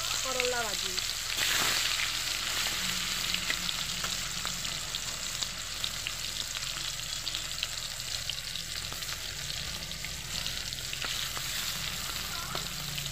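Chopped bitter gourd (karela) frying in hot oil in a steel kadai: a steady sizzle scattered with small crackles.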